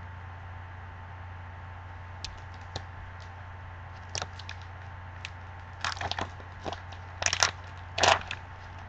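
Foil wrapper of a football trading-card pack crinkling and tearing as it is opened by hand, in short crackling bursts that grow more frequent and louder in the second half. A steady low hum sits underneath.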